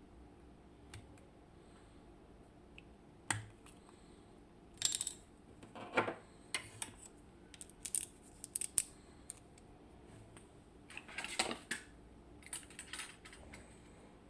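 Small metallic clicks, taps and short scrapes as a Mul-T-Lock Integrator dimple lock cylinder is taken apart by hand, with tools and lock parts knocking and sliding against each other. The sounds come in irregular bursts, loudest near the middle and again about three-quarters of the way through.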